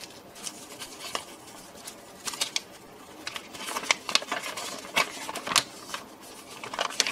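Handling noise of paper and plastic: a folded paper instruction sheet being opened out and handled, with scattered short rustles and crackles, mixed with the crinkle of plastic parts bags.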